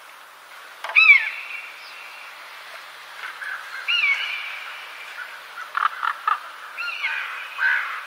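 Bird calls over a steady outdoor background. Three loud calls come about a second in, four seconds in and seven seconds in, each sliding sharply down and then holding a note. A few short sharp clicks come around six seconds in.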